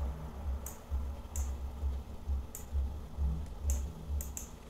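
Quiet, sharp clicks of a computer mouse, about six spaced irregularly, over faint low dull thuds from the desk.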